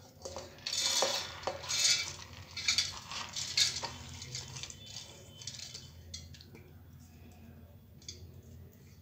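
Steel bowl scraping and knocking against a stainless-steel mixer-grinder jar as soaked moong dal is tipped and scraped into it: a series of sharp metallic scrapes and clinks over the first few seconds, then only faint handling sounds.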